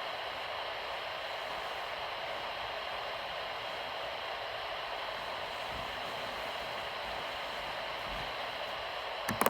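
Weather radio receiver putting out steady static hiss on a dead channel: the transmitter it is tuned to is off the air, so there is no carrier to quiet the receiver. Near the end a few sharp clicks sound and the hiss cuts off suddenly.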